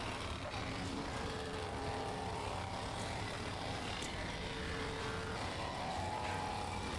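Electric wood planer running steadily as it planes a round glued-up wooden blank, a continuous motor and cutter noise with faint steady tones.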